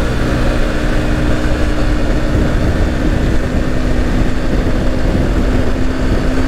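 Yamaha Fazer 150's single-cylinder four-stroke engine running at a steady high cruising speed on the road, its note held level throughout, under heavy wind rush on the camera's microphone.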